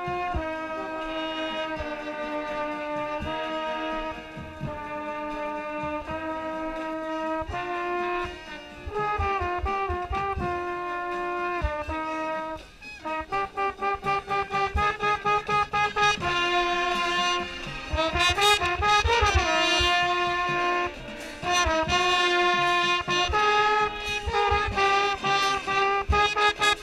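Mellophone played close to the microphone with a marching band's brass. It holds long notes at first, then from about halfway plays a string of short repeated notes, with a quick run up and down in pitch a few seconds later.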